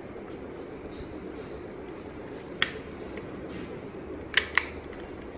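Sharp plastic clicks as a replacement battery door is worked onto a Yongnuo speedlight and clipped into place: one click about halfway through, then two quick clicks near the end.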